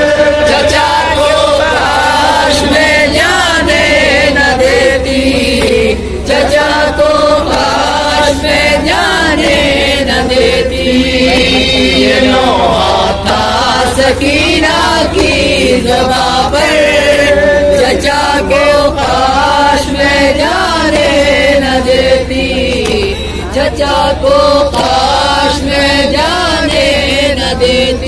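Men chanting a nauha, a Shia Urdu lament, one lead reciter singing into a microphone with other voices joining, amplified through loudspeakers. Regular sharp beats run under the chant, typical of chest-beating (matam) keeping time.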